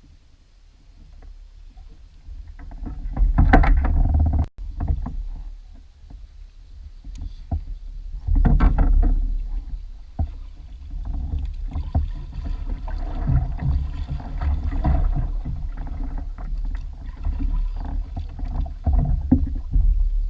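Sounds of a fishing kayak on the water: a steady low rumble with scattered knocks and rustles, swelling loud about three to four seconds in and again about eight to nine seconds in, with a brief dropout just after the first swell.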